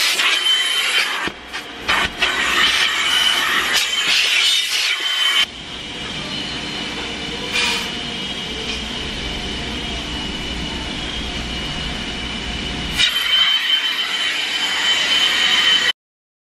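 Car-wash vacuum running through its hose nozzle, a rushing of air with a high steady whine, as the nozzle is worked over the car's seats. The sound grows duller for several seconds in the middle, then loud again, and cuts off suddenly near the end.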